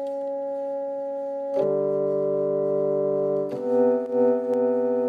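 Music: slow, held chords with a brass-like tone, each chord sustained steadily and changing to a new one about a second and a half in and again about three and a half seconds in.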